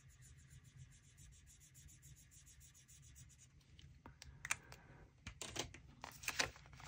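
Marker pen colouring in on a paper card, faint quick back-and-forth strokes. About four seconds in, these give way to a few clicks and knocks as the pen is set down and the cash binder is handled.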